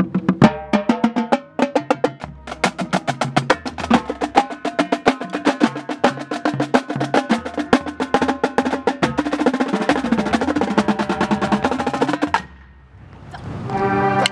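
Marching drumline playing a fast, dense passage of snare, tenor and pitched bass drum strokes. It stops suddenly about twelve seconds in, then a roll swells louder near the end.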